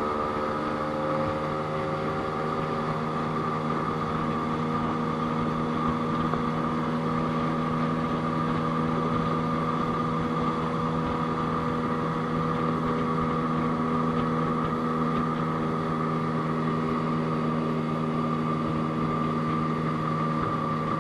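Outboard motor driving a small open boat, running steadily at an unchanging pitch, heard from aboard.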